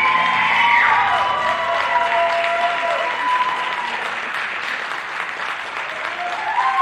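Audience applauding and cheering, with high-pitched whoops and shouts rising and falling over the clapping.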